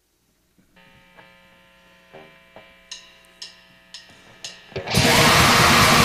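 Raw black metal demo track starting: a faint amplifier hum and held guitar tones with sharp ticks about two a second, then the full band comes in loud near the end with distorted guitars and drums.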